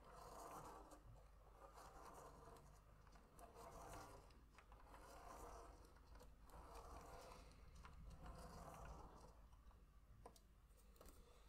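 Fineliner pen scratching across paper as a clear plastic spirograph gear rolls around a toothed ring. The faint rasping swells and fades in even strokes about every second and a half, with a few small clicks of the teeth.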